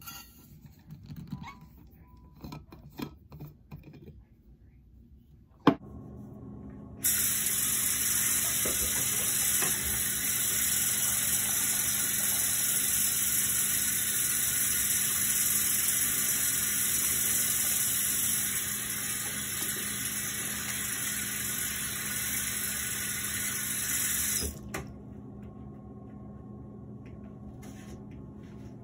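Bathroom sink faucet running in a steady stream for about seventeen seconds while hands are washed, starting and stopping abruptly. A few small clicks and a sharp click come before the water starts.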